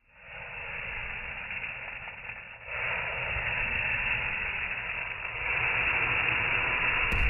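Flaming liqueur in a ladle burning with a steady rushing hiss, growing louder about a third of the way in and again about two thirds in.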